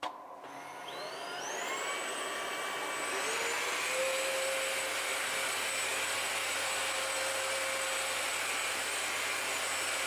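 Two cordless stick vacuums, a Tineco A10 Essentials and a Kenmore, running together on maximum power. Their motors spin up with a rising whine over the first three seconds or so, then run at a steady high-pitched whine while sucking up powder and popcorn from a hardwood floor.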